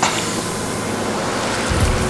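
Steady rushing noise of wind and sea around a sailboat underway. A deep low rumble comes in near the end.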